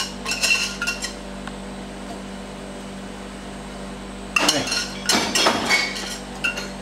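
Metal whisk clinking and scraping against a metal jug as chocolate ganache is poured out and scraped from it: a few ringing clinks at first, a pause with only a steady low hum, then a burst of louder clattering and scraping strokes in the last couple of seconds.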